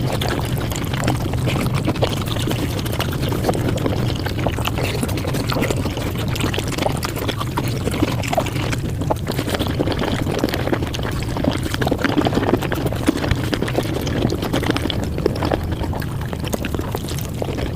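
Close-up eating sounds played back at five times speed: chewing and mouth noises run together into a dense, unbroken stream of small clicks and smacks.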